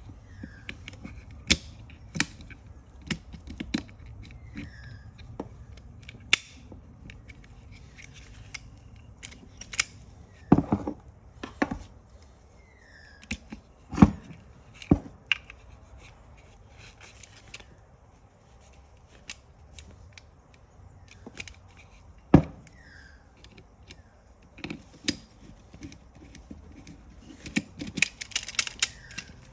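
Seatbelt retractor parts being handled and taken apart by hand: scattered clicks and knocks, with the loudest knocks about halfway and three quarters of the way through, and a quick run of clicks near the end.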